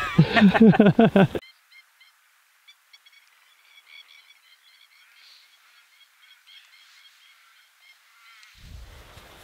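A man's loud voice with swooping pitch in the first second and a half, then a long quiet stretch of faint, short, high chirps of small birds, many in quick succession, with a low rushing background returning near the end.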